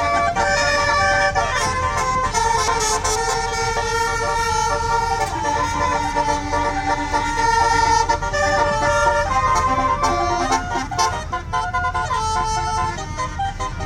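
Tour bus's basuri telolet horn playing a tune: several horn tones sound together and step from note to note, with a low rumble underneath.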